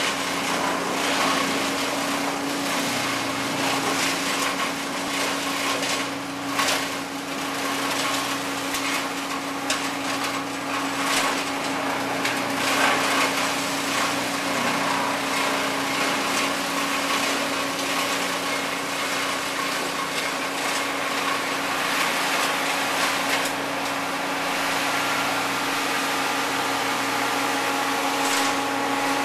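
Wood chipper running with a steady engine hum, while branches are fed in and chipped with irregular crackling and crunching on and off, busiest in the first half.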